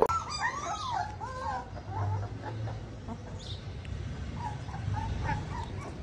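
A puppy whimpering in short, high cries that rise and fall, clearest in the first second and a half and fainter after.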